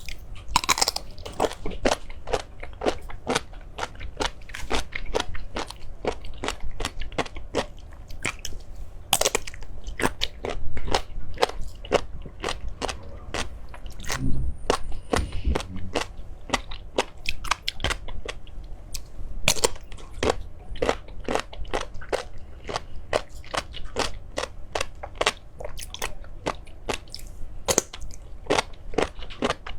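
Crunchy food being bitten and chewed close to the microphone, with sharp crunches coming several times a second.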